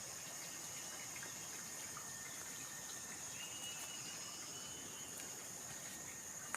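Quiet outdoor ambience: a steady high-pitched insect drone over a faint even hiss, with a few soft ticks.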